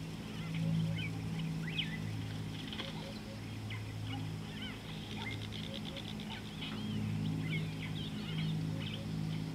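Several wild birds chirping and trilling, with a quick run of rapid notes about five seconds in, over a louder steady low hum that swells and fades.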